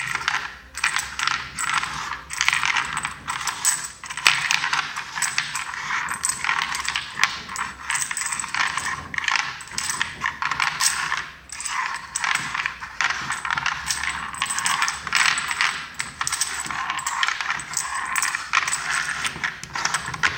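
Magazine speed loader pushing rifle cartridges into a magazine: a continuous run of quick metallic clicks and clinks as the rounds feed in one after another, with a louder knock at the very end.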